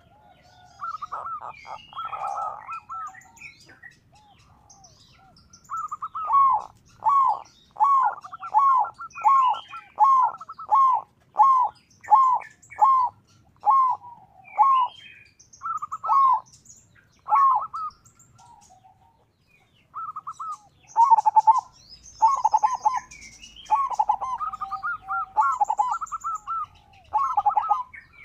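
Zebra dove (perkutut) cooing: runs of short, clipped coo notes about two a second, each falling in pitch, broken by a few pauses and growing busier and overlapping near the end. Faint, thin, high chirps sound behind it.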